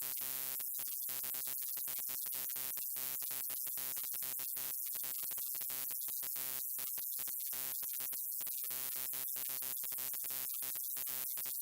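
Electrical hum of a neon light: a steady buzz with evenly spaced overtones under a constant high hiss, the buzz dropping out briefly many times.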